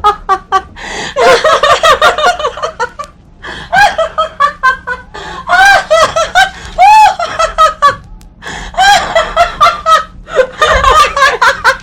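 Two women laughing hard and without stopping, in rapid high-pitched bursts of laughter broken by short breaths.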